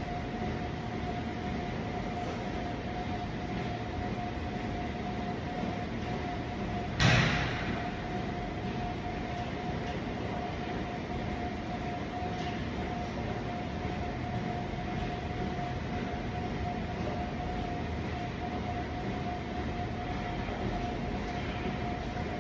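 Steady gym room noise, an even hiss with a constant hum, broken once about seven seconds in by a single loud clank of gym equipment.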